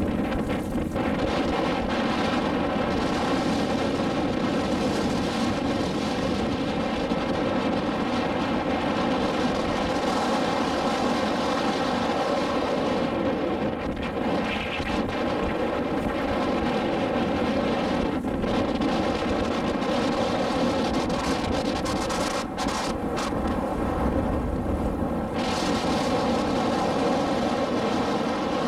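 Motorboat engine running at a steady speed, a constant drone with even pitch, with wind noise on the microphone.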